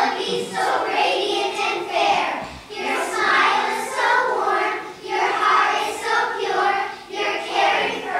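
A group of children singing together in unison, in lines of a few seconds each with brief breaths between them.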